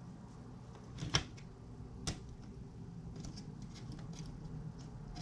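Hard plastic dash-bezel parts clicking and tapping as they are handled and worked apart: two sharp clicks about a second apart, then a run of lighter ticks, over a steady low hum.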